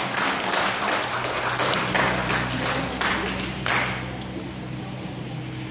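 Sharp hand claps at about two to three a second, irregular, stopping about four seconds in, over a steady low hum.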